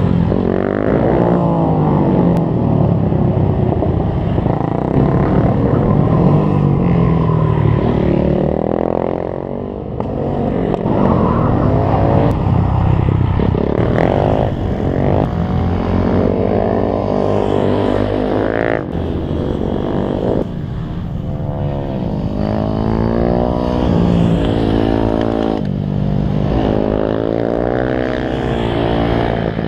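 Supermoto motorcycles taking a tight hairpin one after another, each engine dropping in pitch as the rider brakes in and rising again as it accelerates out.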